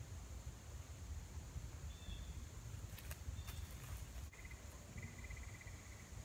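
Woodland ambience: a steady high insect hum, a few short bird chirps and a pulsed trill about four seconds in, over a low rumble of wind on the microphone, with a few faint clicks.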